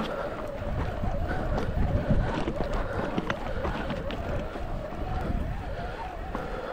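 Wind buffeting a camera microphone on a moving mountain bike, with a wavering hum and scattered knocks and rattles from riding over rough ground.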